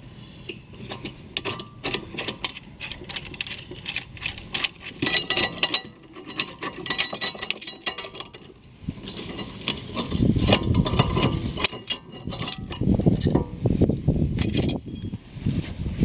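Small metal clicks and clinks as a caliper piston wind-back tool and rear brake caliper parts are handled, with many separate ticks. From about ten seconds in, heavier knocking and rustling handling noise takes over.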